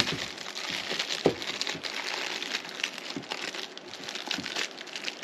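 Clear plastic wrapping crinkling and crackling irregularly as it is pulled off by hand, with a few soft handling clicks.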